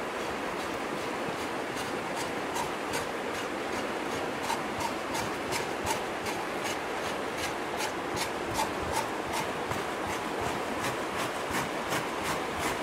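Hands rubbing and scraping the hair off a scalded pig's skin in quick repeated strokes, about two to three a second, over the steady rush of a stream.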